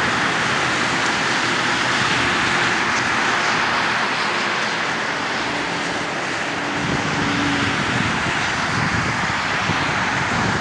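Steady roar of vehicle traffic, with a faint engine drone in the middle.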